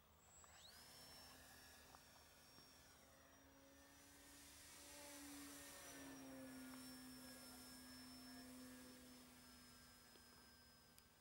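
Thunder Tiger E-Hawk 1500 electric glider running under power, heard faintly: its brushless motor's high whine rises sharply about half a second in, then holds with a slow slight fall, over a steady low hum from the propeller. The sound grows a little louder midway, then eases.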